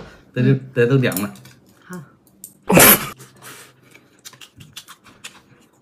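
One loud slurp of noodles about three seconds in, followed by light clicks of chopsticks against ceramic bowls.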